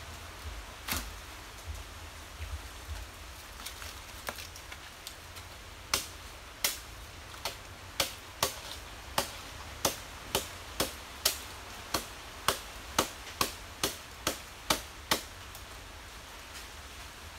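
Sharp chopping strikes on a nipa palm fruit cluster: a few light blows at first, then a steady run of louder hacks about two a second that stops a couple of seconds before the end.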